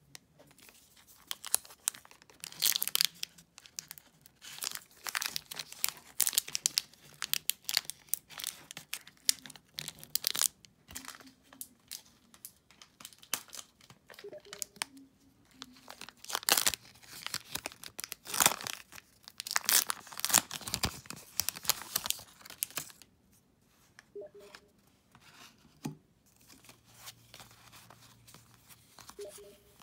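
Foil wrapper of a Pokémon trading card booster pack crinkling and being torn open in a run of irregular crackles, then softer rustling of the cards being handled near the end.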